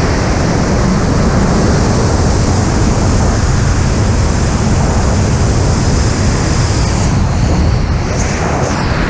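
Loud, steady rush of freefall wind, the airflow buffeting the skydiver's camera microphone.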